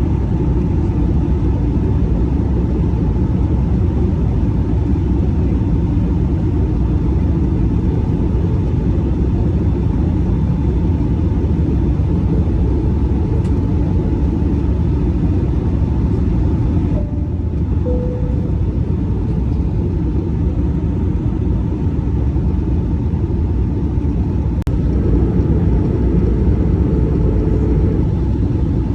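Airbus A319 heard from the passenger cabin: a loud, steady low rumble of the jet engines and airflow, with a faint steady whine above it.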